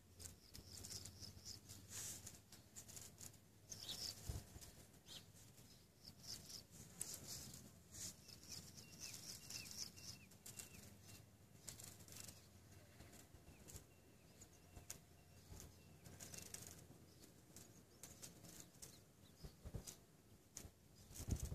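Near silence, with faint irregular rustling and soft crackles, and a faint thin high chirp around the middle.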